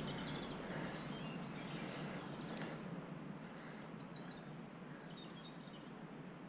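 Quiet outdoor riverside background noise with a few faint high bird chirps about two-thirds of the way through.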